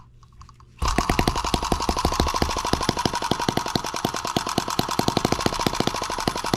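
Miniature single-cylinder M17B model engine starting up suddenly just under a second in, then running with a rapid, even train of sharp firing pops.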